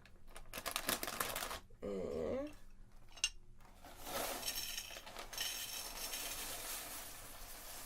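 Handling noise from food packaging and dishes: quick clicks and light clinks, then soft rustling, with a sharp tap about three seconds in and a brief voice-like sound about two seconds in.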